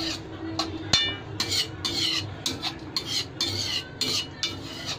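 Metal spoon stirring and scraping in a steel pan of broth, in repeated strokes about two a second. There is a ringing clink of metal on metal about a second in.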